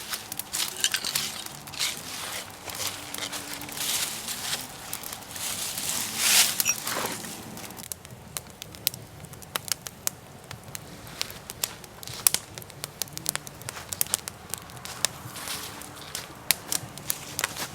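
A freshly lit campfire of split wood and shavings crackling and popping, with many sharp pops throughout and louder, noisier stretches in the first half. The wood is damp after a drizzle.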